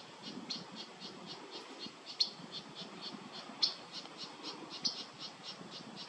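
A faint, even series of short high chirps, about four a second, with a few louder ones, over a faint low rumble: the steady call of a small unseen animal rather than the parakeet.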